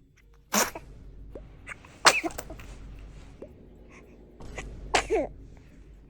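A baby sneezing three times: sudden, loud, noisy bursts, the second and third trailing off in a short falling squeal.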